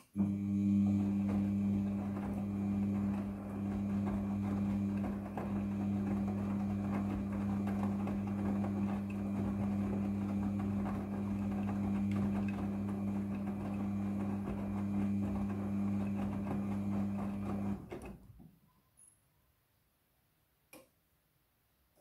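Midea front-loading washing machine's drum motor starting with a click and turning the drum, a steady hum with the rustle of the wet load tumbling inside. It stops about eighteen seconds in, and a single faint click comes near the end.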